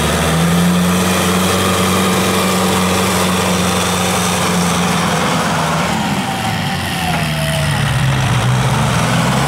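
Kubota farm tractor's diesel engine running steadily under load while driving a rotary tiller through soil. Its pitch sags about six seconds in and picks up again near the end.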